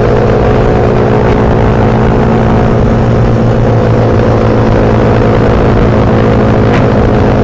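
Suzuki Satria FU 150 motorcycle's single-cylinder four-stroke engine running at a steady, unchanging pitch.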